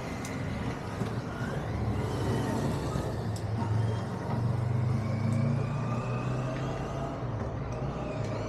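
Low engine rumble of a passing heavy road vehicle, swelling about halfway through and then easing off.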